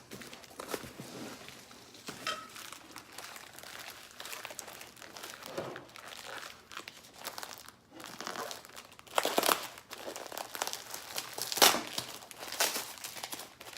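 Packing material being crumpled and torn by hand while items are unwrapped from a box: irregular rustling and crinkling, louder in a few bursts around nine and twelve seconds in.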